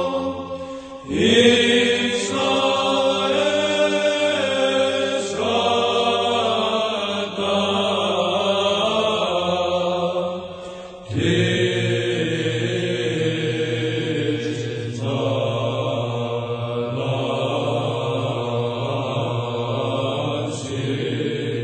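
A psalm chanted in slow sung phrases, with a sustained low note held beneath the melody. The chant pauses briefly and starts a new phrase about a second in and again about eleven seconds in.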